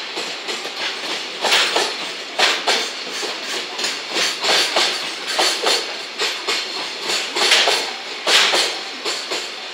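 Container freight wagons of a JR Freight train rolling past, their wheels knocking over the rail joints in repeated close pairs of clacks about once a second, over a steady rumble of the running train.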